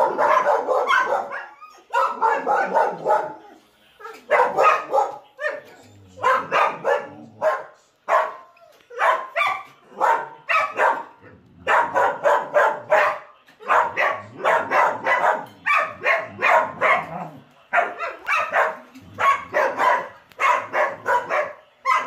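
Dog barking at a moving remote-control toy truck, in rapid runs of several barks a second with short breaks between the runs.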